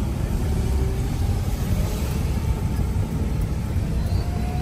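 Steady engine and road rumble inside a moving car's cabin, with tyres running on a wet road.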